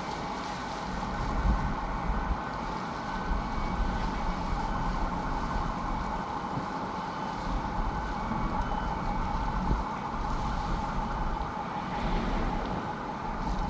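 Steady ambience aboard a cruise ship in port: a constant low rumble and an even mechanical hum that does not change.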